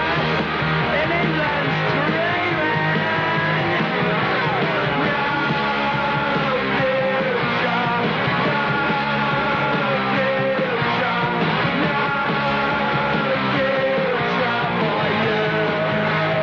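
Loud punk rock music playing steadily, with no break.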